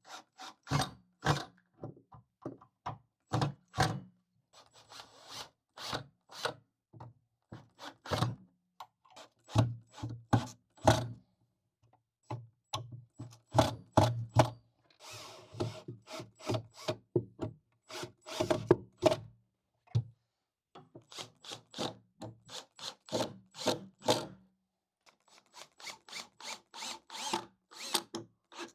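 Cordless drill driving pocket-hole screws into wood in short runs of a low motor hum, amid sharp knocks of wood and tools being handled.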